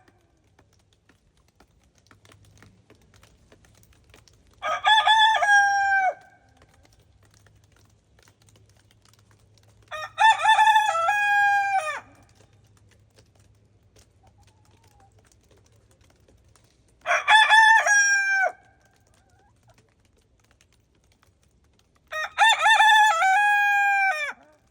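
Araucana rooster crowing four times, each crow about one and a half to two seconds long, several seconds apart.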